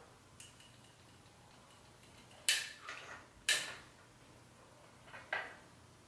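A few sharp clicks and clacks of a Babyliss Pro curling iron being handled as a curl is wound and released, its clamp knocking against the barrel. Three louder clicks come about two and a half, three and a half and five seconds in.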